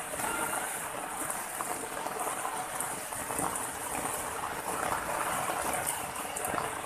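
Water running steadily over rocks, an even rushing noise with no break.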